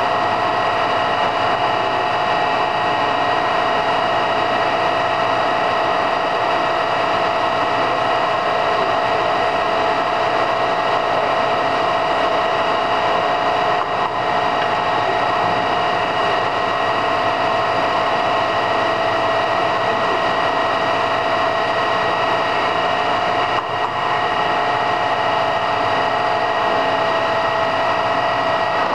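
Lodge & Shipley 21 x 80 heavy-duty engine lathe running under power, its headstock gearing giving a steady whine of several constant tones. The level dips for a moment twice partway through.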